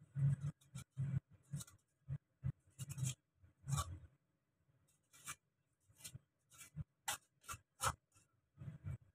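Short, irregular scraping strokes on a coconut, worked by hand over a bowl, with a brief pause about halfway through.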